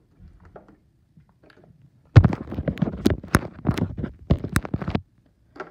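Close handling noise from mobile phones being grabbed and moved: a few faint taps, then about three seconds of loud rubbing, scraping and sharp clicks that stop abruptly.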